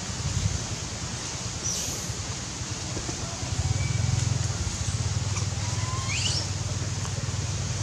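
Steady low rumble that grows louder about three and a half seconds in, with a few faint, short, high chirps, one rising sharply about six seconds in.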